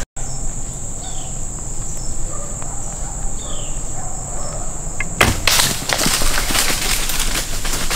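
Steady high-pitched drone of insects in woodland, with two short falling bird notes. About five seconds in, the drone stops and a rustling, crackling noise takes over.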